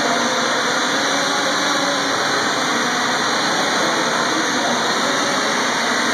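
ETFD2 quadcopter hovering, its four electric motors and propellers running under a foam deck with holes cut for airflow, making a loud, steady whir. The pitch and level hold even throughout, as in a stable hover.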